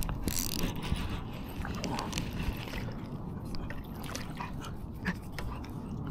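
Baitcasting fishing rod and reel handled right at the microphone: a cluster of loud clicks at the start, then scattered clicks and rustling as the lure is cast and reeled in, over a steady low rumble.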